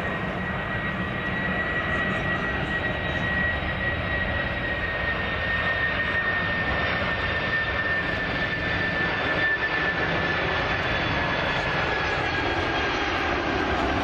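The jet engines of a Boeing 747-400 freighter on landing approach. A steady rush with a high whine that slowly drops in pitch as the jet comes closer, growing louder over the first couple of seconds and then holding.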